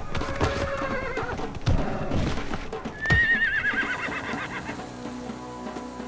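Horses neighing over hooves knocking on the ground. There is a shorter falling call about a second in, then a long, high, quavering whinny about three seconds in.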